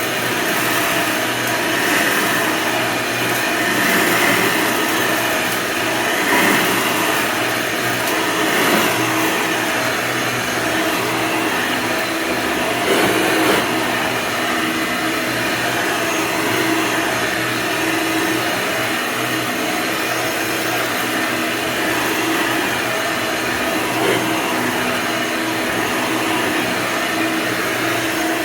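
Hoover upright vacuum cleaner running steadily: a constant rush of air over a motor hum, with a few brief swells in level.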